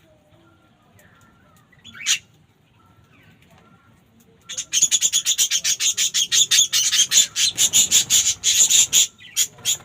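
A bird calling: one sharp call, then a fast run of harsh repeated notes, about eight a second, lasting about four seconds.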